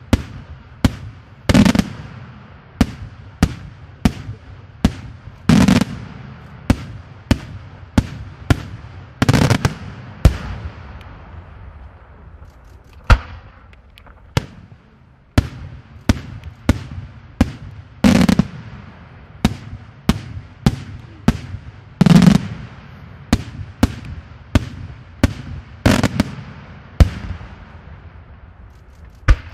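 Daytime aerial firework shells bursting overhead in a steady barrage of sharp bangs, roughly one a second. Every few seconds a heavier boom rumbles and echoes, with a brief lull about halfway through.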